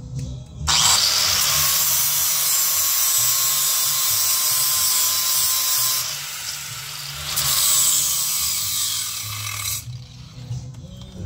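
A handheld power tool runs steadily for about nine seconds with a loud, hissing, rushing noise. It eases off briefly just past the middle, then comes back before stopping.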